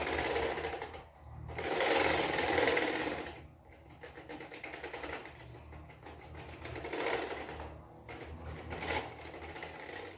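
A small machine running with a fast, even rattle over a low hum, swelling and fading in irregular surges; loudest about two to three seconds in.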